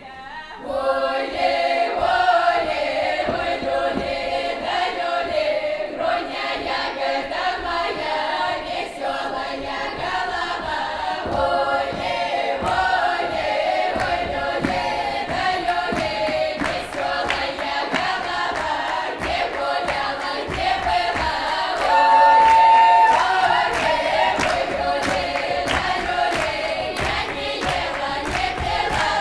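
A folk choir singing a lively Kuban Cossack dance song unaccompanied, in open full-voiced village style, with hand claps keeping the beat in the later part. About three-quarters of the way in, one high voice holds a single loud note for a second or so.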